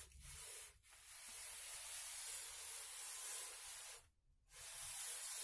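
Paper-wrapped block rubbed along the freshly glued edge strip of a particle-board shelf, pressing the strip flat: a steady hissing swish that stops briefly about four seconds in, then resumes for a second pass.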